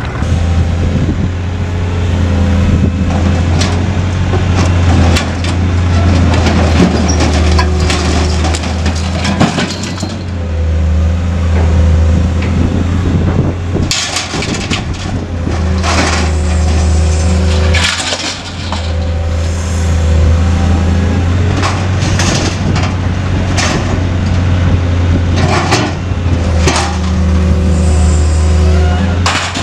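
Material-handling excavator's engine running steadily while its lifting magnet pulls scrap metal out of a pickup bed, with repeated clanks and crashes of sheet metal and junk, most of them in the second half.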